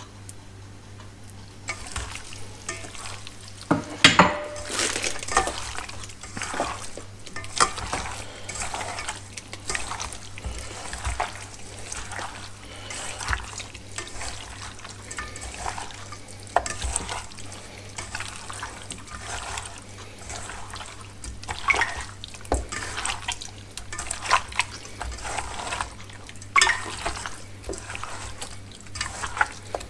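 Raw chicken wings being squished and tossed by hand in a wet marinade in a stainless steel bowl: irregular squelching and sloshing, with a sharp knock about four seconds in.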